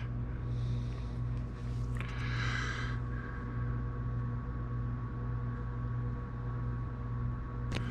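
A steady low hum, with a short rustling hiss about two seconds in.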